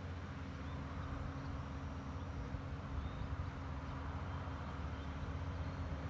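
Steady outdoor background: a low rumble, with a faint steady hum that comes in about a third of a second in.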